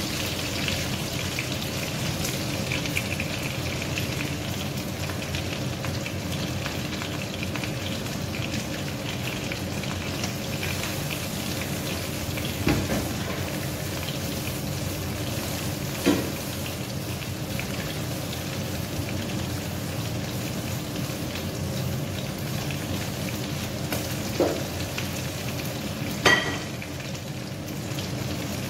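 Breaded chicken breast frying in hot oil with a steady sizzle. A utensil knocks against the pan a few times, the loudest clink with a short ring near the end.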